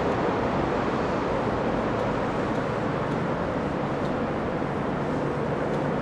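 Steady outdoor background hum like distant road traffic, an even rush with no distinct events.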